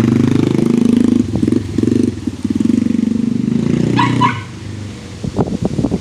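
Yamaha TT-R90's small four-stroke single-cylinder engine running under throttle as the bike is ridden, dipping briefly a few times, then easing off about four seconds in.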